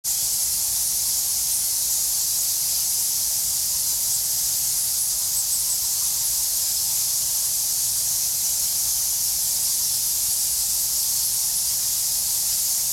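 A steady, high-pitched hiss that holds an even level, with no distinct calls or knocks standing out.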